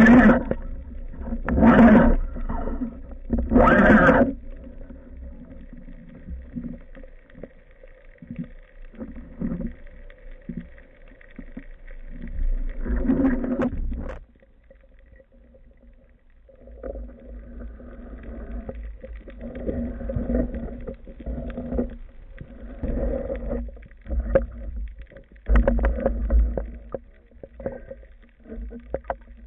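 Sound from an underwater camera on a spearfisher: several loud breaths through a snorkel in the first few seconds, then muffled water noise with a steady low hum. It drops nearly quiet about halfway through before the water noise comes back.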